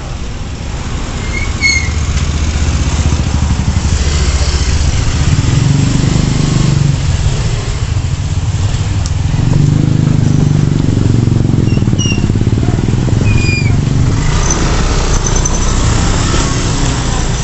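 Motorcycle engines running as the bikes pass close by on a narrow street. The low engine noise swells twice as they go by, and a few short high chirps sound through it.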